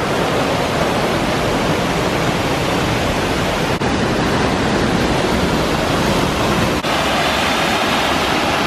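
Water pouring over a low stone mill dam: a loud, steady rush of falling water, with two momentary dips about four and seven seconds in.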